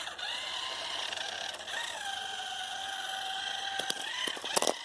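Toy RC car's electric motor whining as the throttle is worked, rising in pitch twice and then holding steady, followed near the end by a quick run of sharp clicks.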